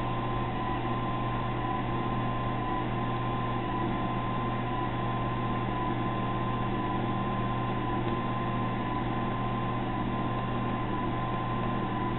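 Steady electric hum of a small pump motor, with a faint constant high tone over it: the mash pump of a RIMS homebrew rig recirculating wort through the grain bed.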